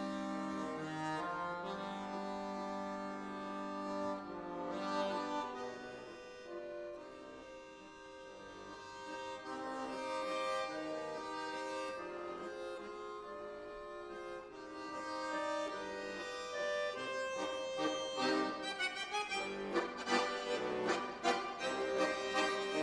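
Bayan (Russian chromatic button accordion) playing a slow melody over held chords, then breaking into quick, short repeated notes near the end.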